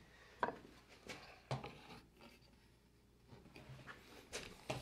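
Light knocks and scrapes of an aluminium dowel centering jig being handled and positioned against an oak board: a few short clicks, a quiet stretch in the middle, then two more close together near the end.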